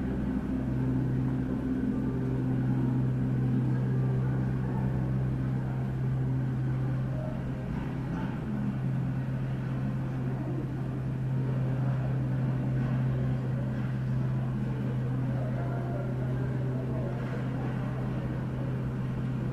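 Aeroflot Boeing 737 jet engines at taxi power, a steady low hum and rumble, muffled as if heard through the terminal glass.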